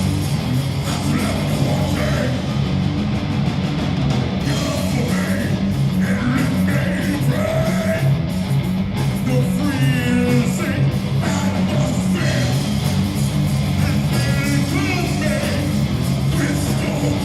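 Live rock band playing loud, heavy rock with electric guitar and drums.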